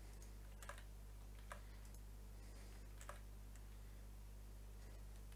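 A few isolated clicks from computer mouse and keyboard use, spaced a second or more apart, over a faint steady low electrical hum.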